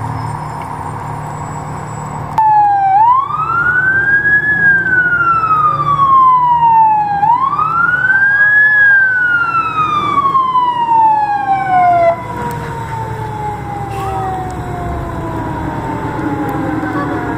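Fire truck siren wailing: twice it winds up quickly and then falls slowly, about every four and a half seconds. It cuts off suddenly, leaving a fainter, slowly falling siren over the rumble of the trucks' engines.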